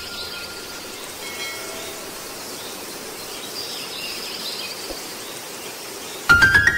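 Steady outdoor background noise with a few faint high chirps. Near the end a loud music chord comes in suddenly.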